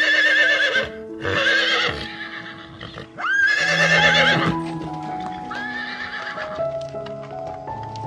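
Horse whinnying about four times, each a quavering neigh lasting about a second, over background music.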